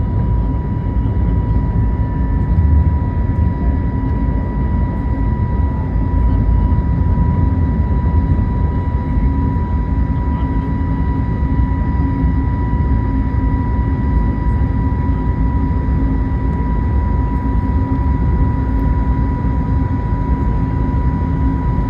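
Airliner jet engines running steadily at high power during takeoff: a continuous deep rumble with a steady high whine.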